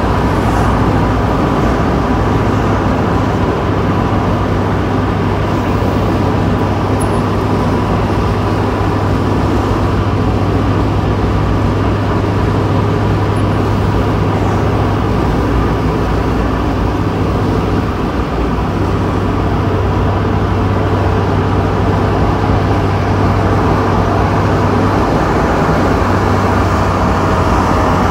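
Mazda Miata convertible driving at road speed with the top down: steady wind rush and road noise over a constant low engine drone, with a slight dip in level about two-thirds of the way through.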